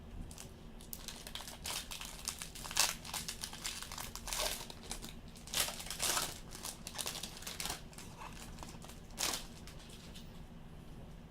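Plastic and foil card packaging crinkling and rustling as baseball trading cards are handled, in irregular crackles with the sharpest ones about three, six and nine seconds in.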